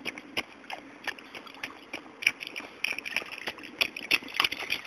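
A small child's rubber rain boots stepping and splashing through a shallow puddle: a quick, irregular run of short splashes and slaps.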